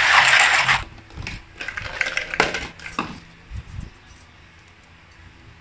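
A hand swishing soapy water in a plastic bucket, splashing for just under a second at the start, then several sharp clinks and knocks as small metal bolts are lifted out and handled.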